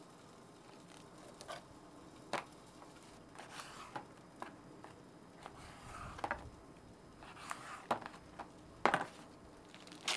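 A knife scaling and cutting King George whiting on a cardboard board: irregular short scrapes and light knocks, with a louder one near the end.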